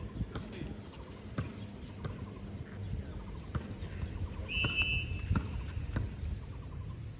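Scattered thuds of a ball bouncing and feet on a hard indoor court over a low murmur of background voices, with one short high squeak about four and a half seconds in.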